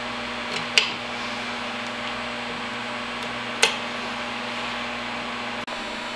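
Two sharp clicks, about three seconds apart, from hand tools and flexible metal conduit being handled at an oil burner motor's wiring box, over a steady low hum.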